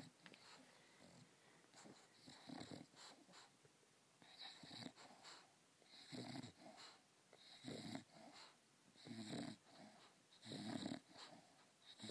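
English bulldog snoring and wheezing in her sleep: faint, noisy breaths about every second and a half.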